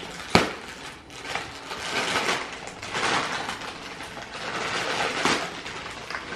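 Gift wrapping paper crinkling and tearing as a heavily taped present is unwrapped, with a sharp click near the start.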